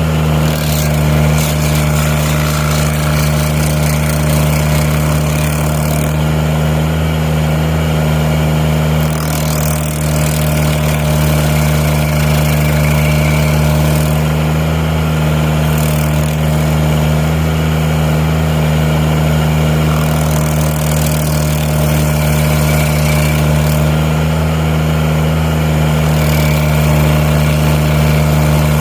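Tobroco Giant SK252 mini loader's engine running steadily under load, powering a Klou stump grinder attachment through its single hydraulic pump. A rough hiss from the grinding rides over the engine, easing off for a few seconds several times and then coming back.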